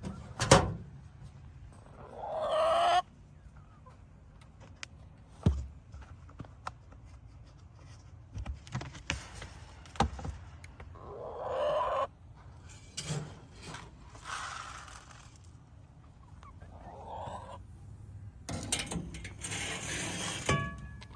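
Chickens clucking at feeding time, in short spells, among scattered sharp clicks and knocks.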